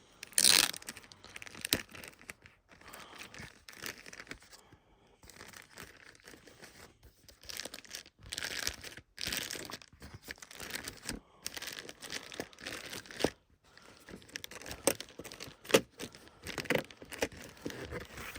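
A sealed cardboard box being opened by hand: irregular tearing and crinkling of the seal and packaging, in uneven bursts with short pauses.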